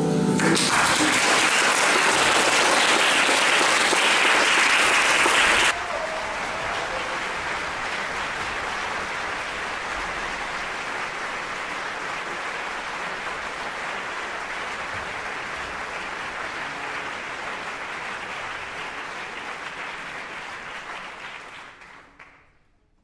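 Audience applauding as the school percussion ensemble's last note dies away. The clapping is loud at first, drops suddenly to a lower level about six seconds in, and fades out near the end.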